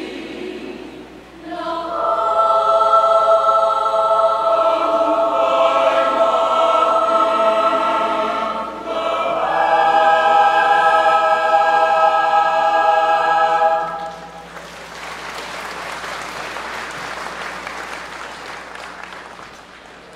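Mixed choir singing long held chords that swell about two seconds in and break off after a last sustained chord about fourteen seconds in. Audience applause follows and dies away toward the end.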